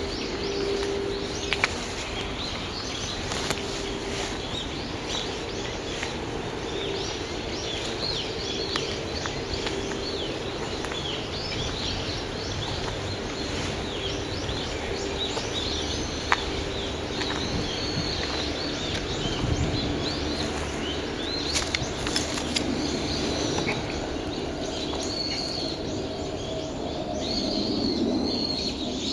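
A noisy chorus of many wild birds calling at once, dense overlapping high chirps and whistled sweeps without pause.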